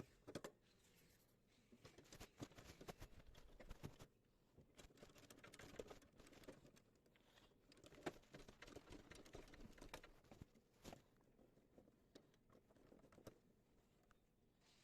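Faint, scattered clicks and light knocks, irregular and close together, from parts and tools being handled during washing-machine disassembly.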